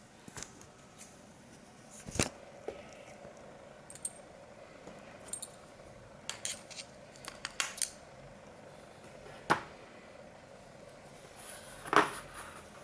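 Small steel parts of a dismantled VW ALH TDI pump-injector (springs, shims, pins and the injector body) clicking and clinking as they are handled and set down on cardboard. The clicks come singly and in short clusters, the loudest just before the end.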